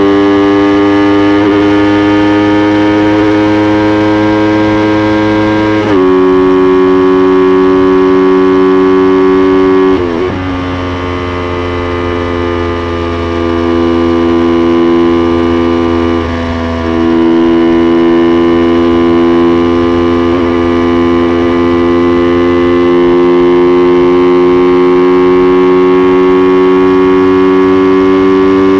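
Yamaha YZF-R3's parallel-twin engine running hard at high revs, its pitch climbing slowly and dropping suddenly about six and ten seconds in, then climbing slowly again.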